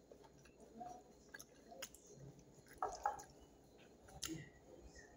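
Faint wet eating sounds: fingers squishing through soft food and mouth chewing, with a few louder smacks about three seconds in and again just after four.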